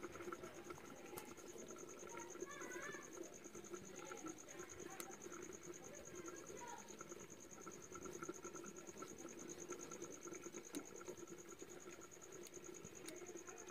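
An insect trilling, a faint, steady, high-pitched pulsed tone, with a few soft clicks here and there.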